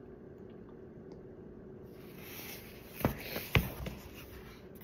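Handling noise of a phone and a paperback book: a soft rustle of paper, then two sharp knocks about three seconds in and a few lighter taps.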